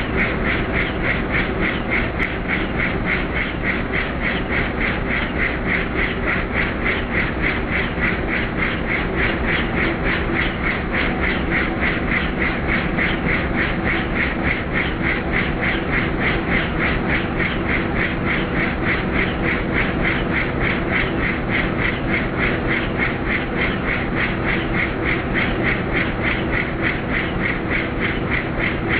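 Helicopter in flight, its rotor blades beating in a steady, rapid rhythm over continuous engine noise, with no change in pace.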